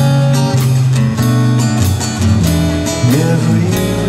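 Background music: a song with strummed guitar over sustained bass notes, and a voice singing a short phrase about three seconds in.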